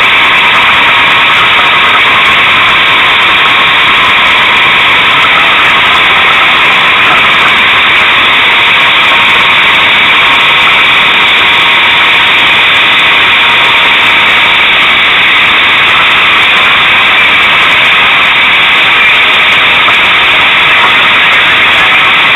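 Unimog 404 S trial truck's engine running steadily at low speed, heard very loud from inside the cab.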